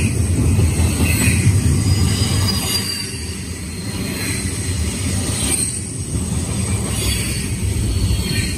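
Double-stack container well cars of a Union Pacific intermodal freight train rolling past: a steady low rumble of steel wheels on rail, with faint high wheel squeal coming and going.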